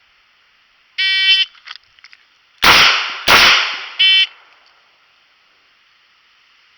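A shot timer beeps to start, then two .38 Special shots from a Taurus 856 snub-nose revolver, about two-thirds of a second apart, one on each target. The timer beeps again three seconds after the start, marking the end of the par time.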